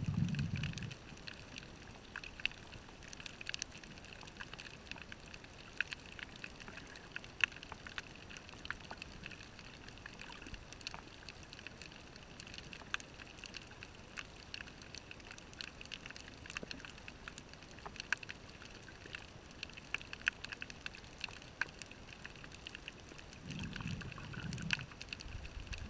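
Underwater sound of a diver on a coral reef: a steady faint hiss scattered with sharp clicks and crackles. A low bubbling rumble from the diver's exhaled regulator bubbles comes at the very start and again near the end.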